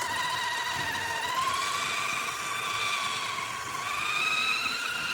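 Electric motor and geared drivetrain of a radio-controlled scale rock crawler whining steadily as it climbs over roots. The pitch steps up a little over a second in and rises again near the end as the throttle changes.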